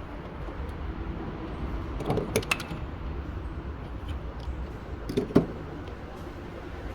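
Metal tool clinks as a spark plug socket is fitted down into the coil pack well: two short clusters of clicks, about two seconds in and about five seconds in, over a steady low hum.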